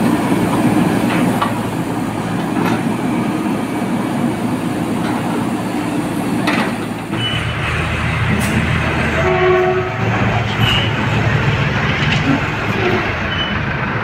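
Diesel engine of a JCB backhoe loader running. About seven seconds in this gives way to the lower, steady engine of an Escorts pick-and-carry mobile crane as it drives, with a few short horn-like tones about ten seconds in and again later.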